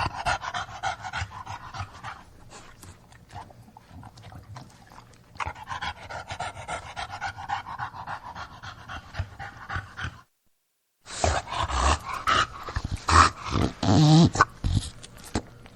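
English bulldog breathing hard: rapid panting, snuffling breaths that ease off for a few seconds and then build again. The sound cuts out completely for about a second, then comes back louder with snorts and a short low grunt.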